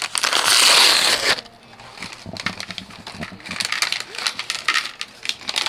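A sealed LEGO minifigure packet torn open in one loud rip lasting about a second, then crinkling of the packet and small plastic parts clicking as they are shaken out into a plastic tray.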